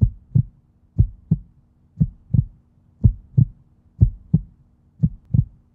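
Heartbeat sound effect: six low lub-dub double thumps, about one a second.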